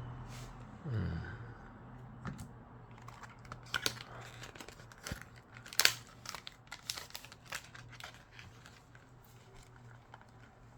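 Plastic packaging being handled and crinkled, with a scatter of sharp irregular crackles and clicks.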